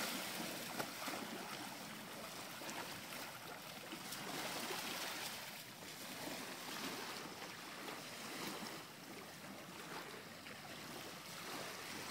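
Small waves washing onto a sandy beach, a steady hiss of surf that swells and fades every few seconds.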